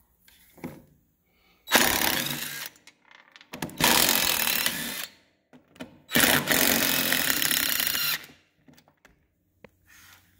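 Impact wrench running in three bursts of one to two seconds each, zipping off the bolts that hold a mower deck spindle.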